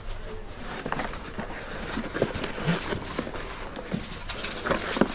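Sports cards and a cardboard card box being handled: scattered light taps, knocks and rustles at irregular intervals over a low steady hum.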